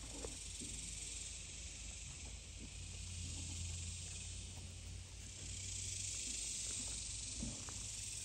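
Steady high-pitched insect drone, such as a cicada or cricket chorus, swelling louder about halfway through, with faint rustles and clicks of small animals moving over wood chips.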